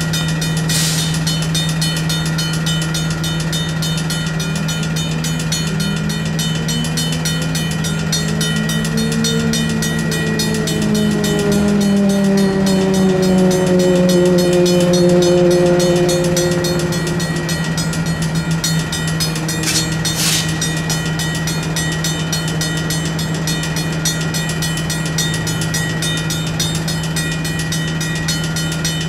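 Railroad crossing bells ringing steadily, a Safetran mechanical bell and a WCH electronic bell, while a diesel train moves through the crossing. The train's engine tone rises over a few seconds and then falls away, with a brief metallic clank about two-thirds of the way in.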